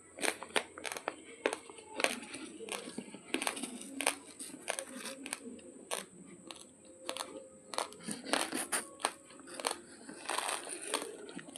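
Plastic spoon scooping and stirring dry raw basmati rice in a foil bag: the grains rustle and the bag crinkles, with many sharp, irregular clicks.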